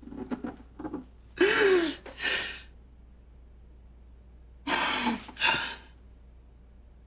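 A man crying hard: a few short choked sobs, then loud wailing cries, with two more cries about five seconds in.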